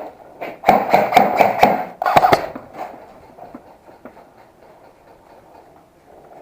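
Airsoft rifle firing a quick string of sharp shots, several a second, for about two seconds.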